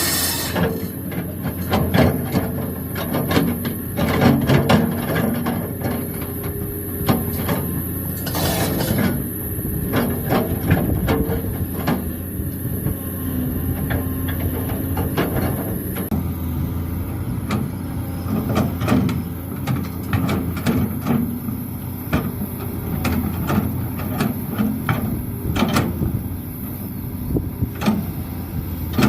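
Hydraulic excavator at work: its diesel engine runs steadily under many irregular clanks and knocks.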